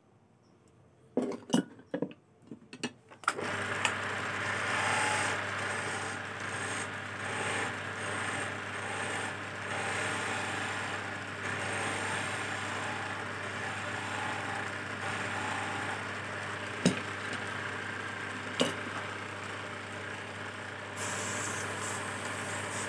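A few knocks at first, then about three seconds in a belt-driven wood lathe starts up and runs with a steady hum. Near the end a chisel cuts into the spinning teak chess piece, adding a brighter scraping noise, with two sharp clicks shortly before.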